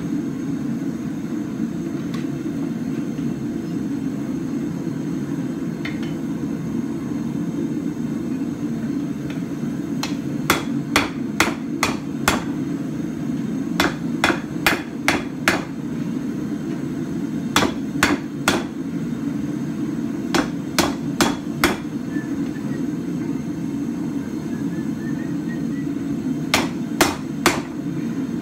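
Hand hammer striking a red-hot steel bar on an anvil in five quick bursts of four to six sharp blows, with pauses between them. A steady low rumble runs underneath.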